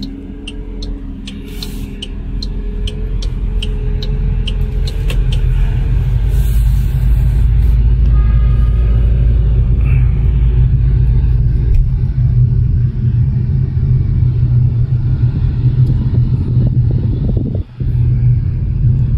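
Inside the cabin of a BAIC X55 with the 1.5-litre turbo engine and CVT, pulling away: the low rumble of engine and road noise grows over the first several seconds, then holds steady at low city speed. Turn-signal ticking, about twice a second, runs through the first five seconds.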